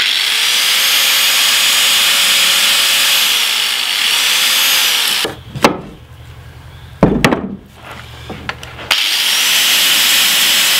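Angle grinder sharpening a steel axe blade: a steady grinding hiss for about five seconds, its motor tone dipping in pitch as it bears on the steel. Then a quieter gap with a few sharp knocks, and the grinder grinds again for the last couple of seconds.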